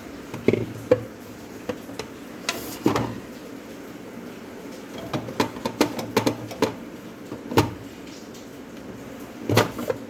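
Food containers being handled in a refrigerator: scattered clinks and knocks as items are picked up and set down. The knocks are spread through, with a quick run of them in the middle and a cluster near the end.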